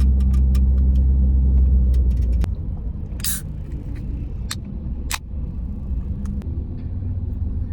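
A low steady rumble, heavier for the first two and a half seconds and then lighter, with a brief hiss a little after three seconds in.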